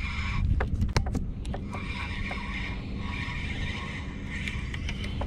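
Spinning reel being cranked to bring in a small hooked bass, with a faint on-and-off whir and a few sharp clicks about a second in, over a steady low rumble.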